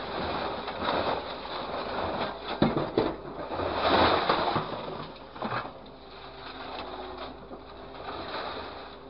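Hydraulic grapple crane working light scrap metal: loose sheet metal rattling and clattering as the grapple lifts it over a container and releases it, over the steady hum of the machine's engine and hydraulics. A few sharp metal knocks come about two and a half to three seconds in, and the loudest rush of clatter about four seconds in.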